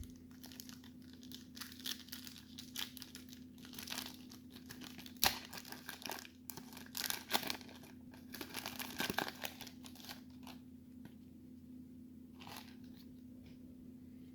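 A 1990 Score baseball card pack being torn open by hand, its wrapper crinkling and tearing in a run of short crackles, the sharpest about five seconds in. The crackles die away after about ten seconds, with a faint steady hum underneath throughout.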